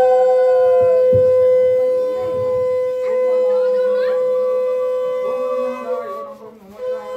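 Conch shell (shankha) blown in one long, steady, sustained note. It breaks off briefly about six seconds in and starts again near the end.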